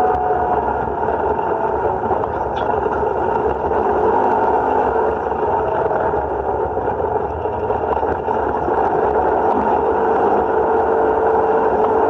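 Side-by-side UTV engine running steadily at trail speed, mixed with tyre and chassis noise from driving on a dirt and gravel road. A faint whine wanders in pitch, and there is one small click about two and a half seconds in.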